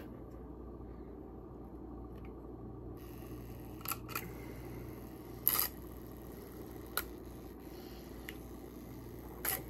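Small portable blender bottle running, whirring steadily as it mixes a powdered drink, with several sharp clicks.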